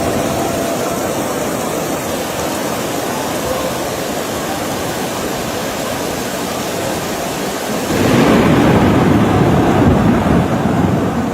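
Torrential rain pouring down in a steady rush. About eight seconds in, the sound jumps louder and heavier.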